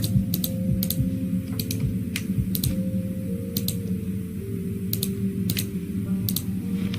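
Scattered sharp clicks, about one or two a second, over slow background music of sustained notes that change pitch every second or so.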